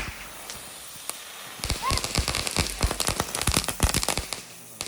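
Firecrackers going off in a rapid, irregular string of sharp cracks and pops that starts about a second and a half in and dies away near the end.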